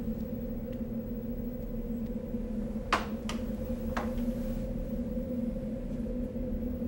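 A steady low hum, with three short clicks between about three and four seconds in.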